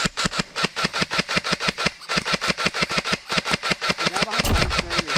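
Airsoft gun firing on full auto: a long run of rapid, evenly spaced shots with a short break about two seconds in, and a low thump near the end.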